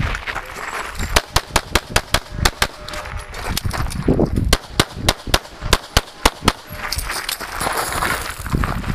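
Rapid semi-automatic pistol fire from a CZ 75: fast strings of shots a few tenths of a second apart. There is a break of about a second a few seconds in and another lull near the end, while the shooter moves between positions.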